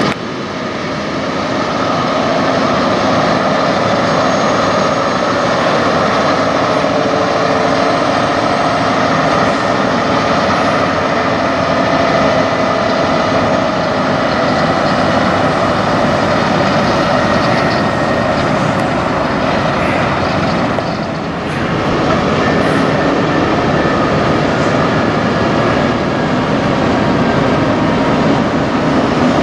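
Diesel engines of Peterbilt semi trucks running steadily as the tractor-trailers pull slowly past, with a brief drop in level about twenty-one seconds in.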